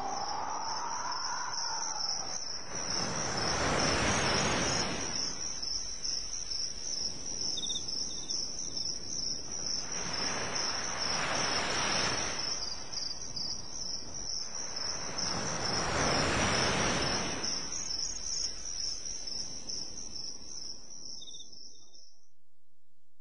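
Crickets chirping in a steady, high pulsing trill, with waves washing in three times in slow swells that rise and fall over a couple of seconds each. The sound stops shortly before the end.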